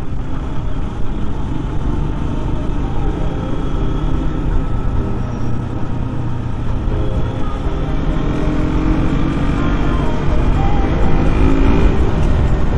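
A road vehicle on the move: steady engine and road rumble, with pitched tones coming in over the last few seconds.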